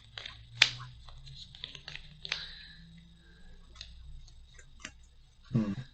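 Trading cards being handled and laid down on a play mat: scattered light clicks and snaps, a couple of them sharper, with a brief low voice sound near the end.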